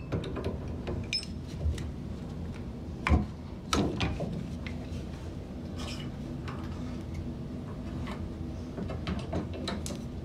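Sharp metal clicks and clanks from handling a PEX crimping tool against brass crimp fittings, the loudest about three seconds in, over a low steady hum.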